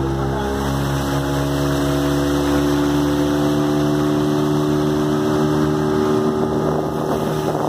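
Speedboat engine running at a steady pitch while the boat is underway, with a steady rush of water and wind underneath.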